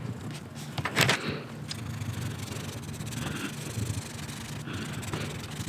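Colored pencil rubbing on paper as part of a drawing is shaded in. There is a sharp tap about a second in.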